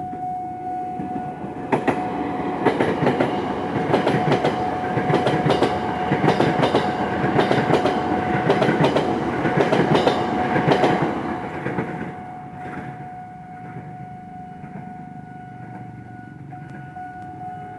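KRL commuter electric train passing close at speed, its wheels clattering over rail joints for about ten seconds before the sound fades as it moves away. A level-crossing warning alarm keeps sounding a steady tone throughout.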